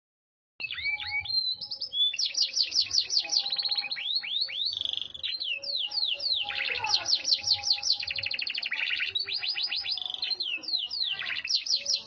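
Yorkshire canary singing a long, continuous song of rapid trills and quick sweeping notes, starting about half a second in.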